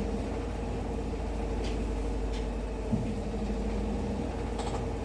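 Toshiba washing machine running with an abnormal noise: a steady mechanical drone and hum carrying a constant tone, with a few faint ticks and a small knock about three seconds in.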